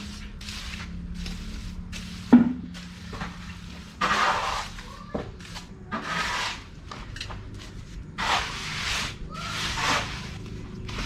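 A hand tool scraping through wet concrete in a series of short strokes, with one sharp knock a couple of seconds in.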